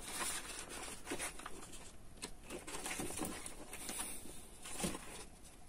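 Quiet rustling and light taps of paper manual pages being turned and handled by a gloved hand, in short irregular bursts.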